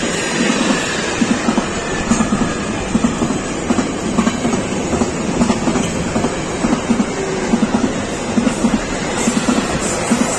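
Freight train of container-laden flat wagons rolling past at close range, the wheels clattering rhythmically over the rail joints in repeating groups of knocks over a steady rumble.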